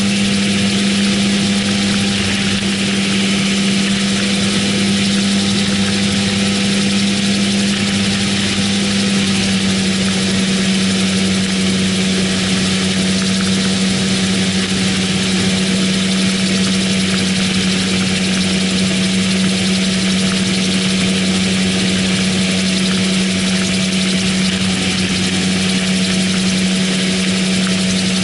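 AutoGyro MTO Sport gyroplane in cruising flight, heard from its open cockpit: the engine and pusher propeller drone steadily at one unchanging pitch under a constant rush of wind noise.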